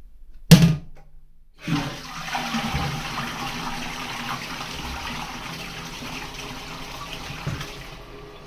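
A sharp clunk about half a second in, then a toilet flushing: a rush of water starts a second later and slowly fades.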